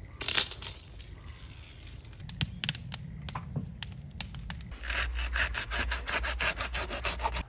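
Saw cutting through wood in quick, even strokes during the second half, after a few scattered sharp knocks and scrapes.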